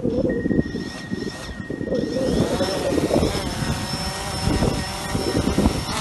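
DJI Phantom 4 quadcopter's motors and propellers spinning up, the whir rising in pitch around two seconds in and then holding a steady whine as the drone readies to lift off. Wind buffets the microphone with low gusts.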